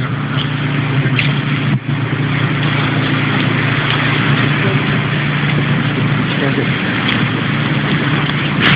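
Steady rumble of road traffic in a road tunnel, with a short knock near the end.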